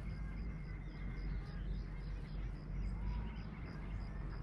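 Outdoor ambience with faint bird chirps over a steady low rumble. A high-pitched tick repeats evenly, about four times a second.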